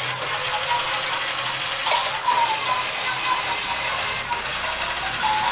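A battery-powered toy train's small electric motor and plastic gears running steadily. The mother puts it down to the batteries running low.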